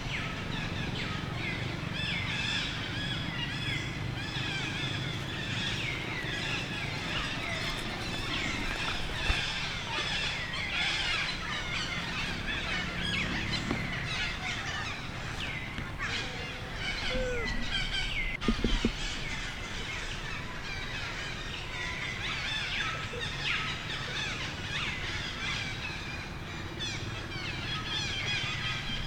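Many small birds chirping over a steady low outdoor rumble, with a short loud sound cutting in about two-thirds of the way through.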